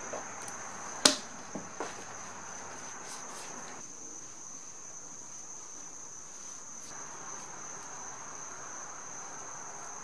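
Trigger spray bottle squirting soapy water onto an inflated bicycle inner tube to find a puncture: one sharp spritz about a second in and a couple of softer ones just after, then the rubber tube being handled. Crickets trill steadily and high-pitched throughout.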